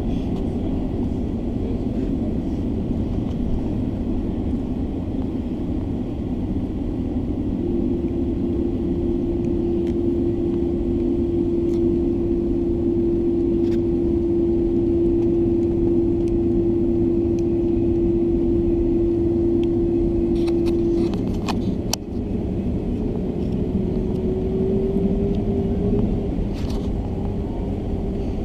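Inside the cabin of a Boeing 767 taxiing: a steady low rumble from the engines and the airframe rolling along the taxiway. A steady whine holds through the middle, with a few light knocks, and a tone climbs slightly in pitch near the end.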